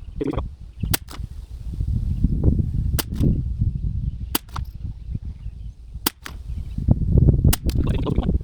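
Anschutz 1761 .22 LR rifle firing from a bench, sped up so the shots come about every second and a half: five sharp cracks, each followed closely by a second click, over a steady low wind rumble.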